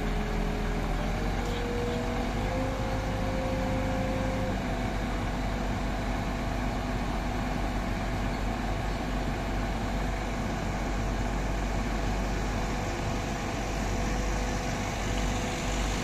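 Diesel engine of a MAN truck-mounted Schwing Stetter concrete boom pump running steadily, powering the pump during its function tests. A steady whining tone rides over the engine and steps up in pitch twice in the first few seconds.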